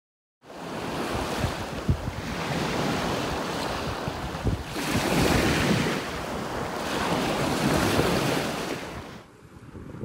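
Waves washing on the beach with wind buffeting the microphone. The noise swells twice and drops away sharply near the end.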